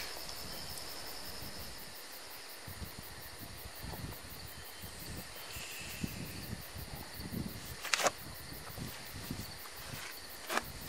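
Rural outdoor ambience with a steady high insect chirring that fades about two seconds in, soft rustling and bumps, and two sharp clicks, one about eight seconds in and one near the end.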